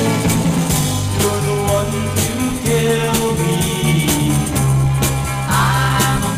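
A mid-1960s garage folk-psych rock recording: a band playing over a steady beat with a moving bass line. A sliding note rises in pitch about five and a half seconds in.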